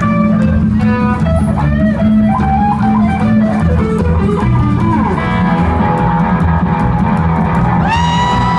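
Live rock band playing loud: an electric guitar lead runs a quick line with bent notes over bass guitar and drums, then settles into long held notes in the second half.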